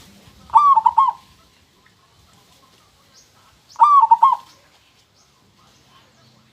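Zebra dove (perkutut) singing: two short rolling coo phrases of several quick notes each, about three seconds apart.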